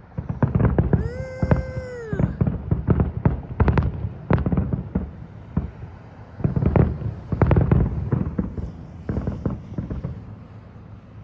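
Fireworks exploding in rapid volleys of bangs and crackles, in two bursts, with one steady whistle about a second in.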